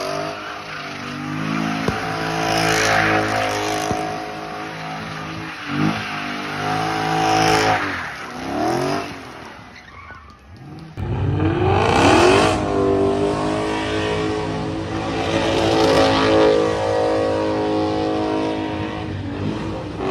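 Dodge Challenger SRT8's 392 HEMI V8, fitted with long-tube headers and a Borla ATAK exhaust, revving hard through donuts with tyres squealing. The engine pitch rises and falls again and again, fades about ten seconds in, then revs up sharply again.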